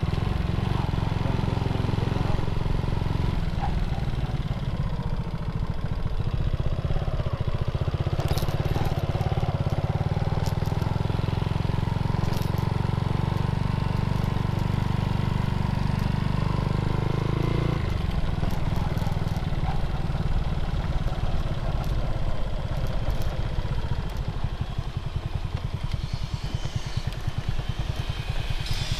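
Motorcycle engine running while riding, with a few sharp clicks and rattles over a rough dirt road. The engine note eases off about two-thirds of the way through.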